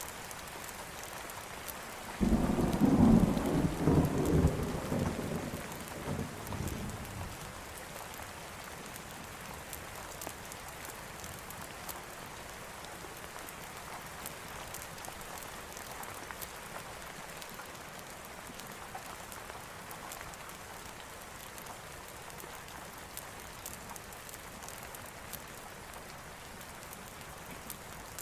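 Steady rain falling. About two seconds in, a sudden thunderclap rumbles and fades away over the next five seconds or so.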